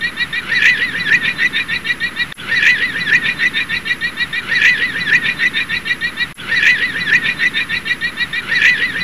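Llama call: a fast run of short, high-pitched cries that swells about every two seconds, with brief breaks about two and a half and six and a half seconds in.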